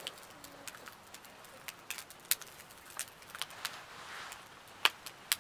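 Oysters in the shell grilling over an open fire pit: scattered sharp crackles and pops from the fire and shells, with a faint sizzle about four seconds in and two louder pops near the end.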